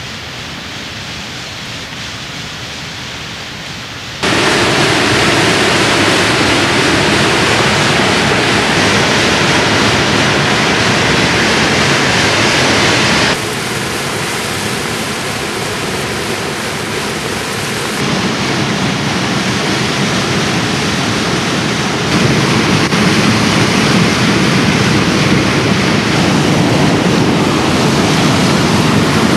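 Steady rushing noise of rain and fast river water, with no speech. It jumps sharply louder about four seconds in and shifts level abruptly a few more times.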